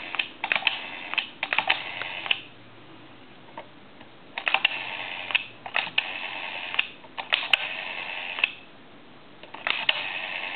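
Candlestick telephone's rotary dial being dialed digit after digit, its repaired and adjusted dial clicking out the pulses in four bursts of rapid clicks with pauses of a second or two between them.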